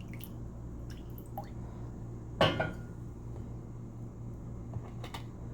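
A little water dribbled into a small bowl of sugar: faint drips and small clicks over a steady low hum, with one louder short knock or clink about two and a half seconds in.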